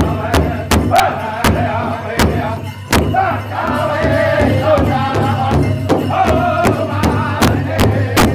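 A powwow drum group singing together over a large powwow drum struck in unison with padded sticks at a steady beat. The drumbeat thins out for a few seconds in the middle while the singing carries on, then comes back.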